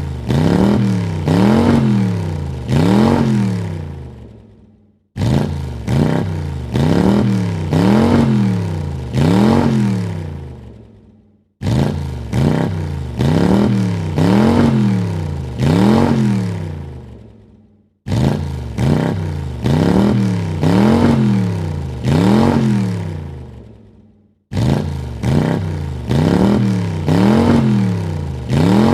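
Car engine revved in three quick blips, the pitch rising and falling with each one. The same burst repeats about every six and a half seconds, each starting abruptly and dying away at the end.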